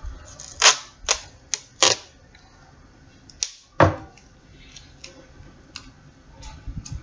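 Hands handling a roll of tape and small objects on a tabletop: a handful of sharp clicks and knocks, one of them a duller knock about four seconds in, then fainter ticks.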